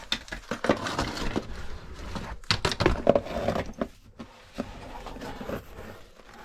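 Irregular scraping and rustling of a caver's clothing and gear against rock while crawling into a tight squeeze, with scattered sharp knocks.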